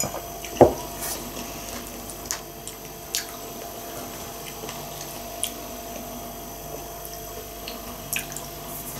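A ceramic mug set down on a table with one sharp knock about half a second in, then a few faint scattered clicks and small handling sounds over a steady faint hum.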